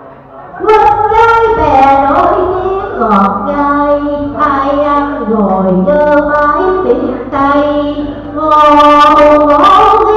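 A woman singing a slow Vietnamese song into a microphone, starting about a second in, with long held notes that slide between pitches. A steady low hum runs underneath.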